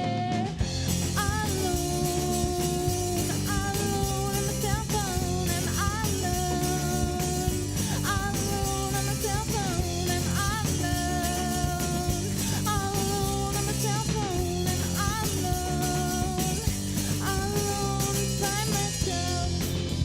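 Rock music: electric guitar and drum kit under a sliding lead melody that repeats in short phrases.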